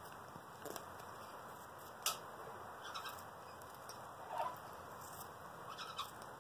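A cockatoo nibbling a piece of sweet potato held in its foot: scattered beak clicks and small crunches about a second apart, the sharpest about two seconds in.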